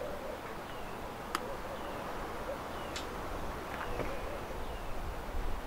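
Two sharp snips of bonsai pruning cutters cutting small acacia twigs, about a second and a half apart, with a fainter click near the end. Faint short falling chirps repeat in the background.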